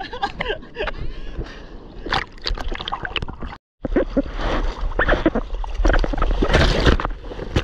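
Seawater sloshing and splashing right at the microphone in the surf, over a low rumble of wind buffeting. The sound cuts out completely for a moment about halfway through.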